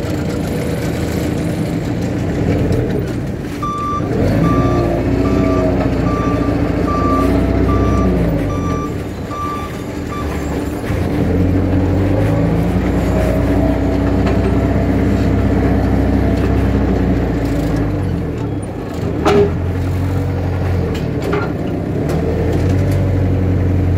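Forklift engine running and revving up and down as it carries a loaded pallet. A reversing beeper sounds a steady series of beeps, about one and a half a second, for several seconds early on, and a single sharp knock comes about 19 seconds in.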